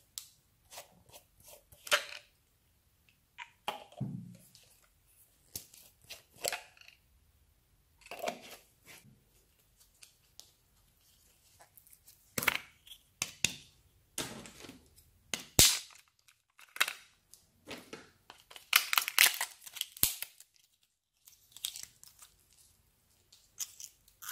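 Small plastic toy containers handled and a play-dough tub's plastic lid worked open by hand: scattered clicks, taps and short scratchy rustles. There is one sharp click about sixteen seconds in and a louder run of rustling a few seconds later.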